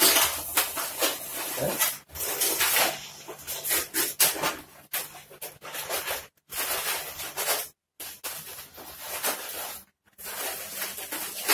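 Latex modelling balloons squeaking and rubbing against each other and the hands as they are twisted into a flower shape, in uneven bursts. The sound cuts out abruptly a few times.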